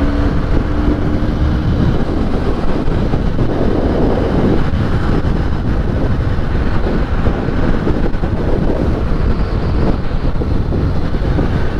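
Wind rushing over the microphone on a moving Benelli 302S motorcycle, a steady loud buffeting, with the bike's engine running underneath.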